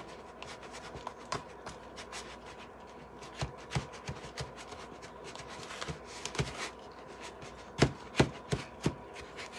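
Thick spackle, stiffened with flour, being stirred in a clear plastic bowl: irregular clicks and knocks of the utensil against the bowl with soft scraping, and a few louder knocks near the end.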